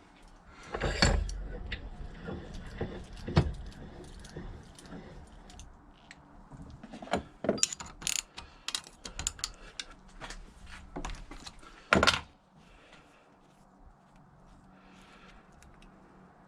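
Small metal parts being handled: the removed gearbox drain plug, level plug and washers clinking and knocking against each other and the bench, with a run of quick clicks midway and a few louder knocks.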